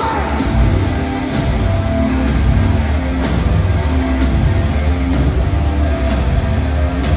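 A hard rock band playing live through an arena PA: distorted electric guitars, bass and drums in a slow, heavy, repeating riff.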